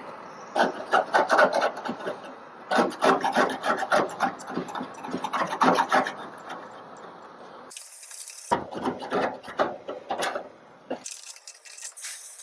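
Hand scraper rasping undercoating tar off a car's sheet-steel fender in quick repeated strokes, in three runs with short pauses between, clearing the metal for welding.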